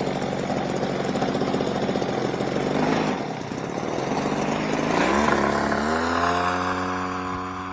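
A small engine running with a steady buzz. About five seconds in, a drone of held musical tones slides up in pitch and takes over.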